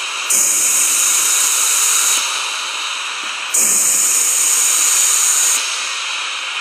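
Rushing hiss of air being blown into a deer's trachea to inflate its lungs, surging louder twice for about two seconds each, the surges about three seconds apart.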